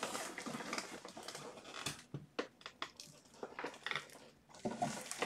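Rummaging: scattered light clicks, knocks and rustling as small objects are moved around and searched through.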